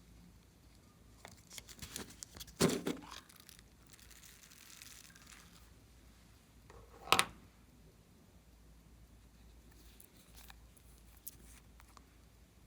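Glossy slime being stretched and pressed by hand, with sticky crackles and two loud sharp pops, about 2.5 s and 7 s in.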